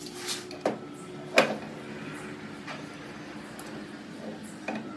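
A few scattered knocks and clanks of tools and parts being handled, the loudest about a second and a half in, over a faint steady hum.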